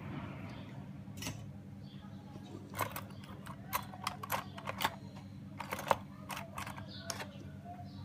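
Small sharp clicks and taps of hand tools being picked up and handled on a workbench, a quick cluster of them through the middle, over a steady low hum.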